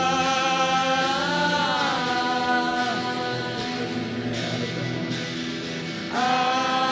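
Music of long held, droning tones, like a chant, with a pitch bend about a second and a half in. The sound thins and fades in the middle, then a new loud held chord comes in about six seconds in.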